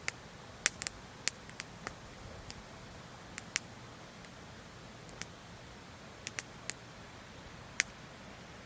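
Wood fire crackling: about a dozen sharp, irregular pops and snaps over a steady faint hiss.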